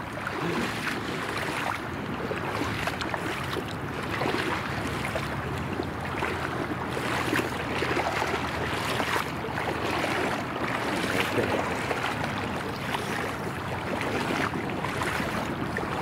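River water rushing steadily, with irregular splashing as legs wade through the current.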